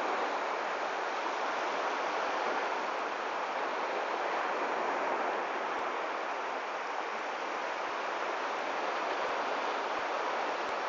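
Steady rushing of surf breaking along a sea beach, a continuous even hiss with no distinct events.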